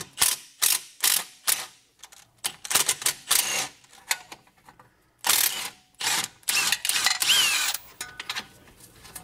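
Cordless ratchet spinning a bolt out of the rear suspension in a series of short runs, with a longer run of about a second near the end.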